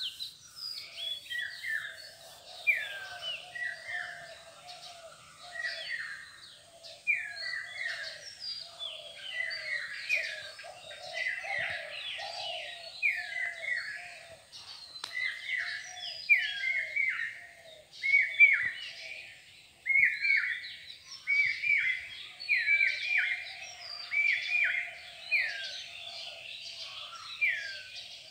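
Many small birds chirping in a dense chorus: a constant run of short chirps that slide down in pitch, over a lower, steady chatter.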